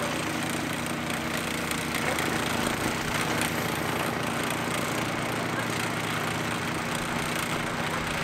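An engine running steadily, a low hum under a dense, harsh noise that stays even throughout.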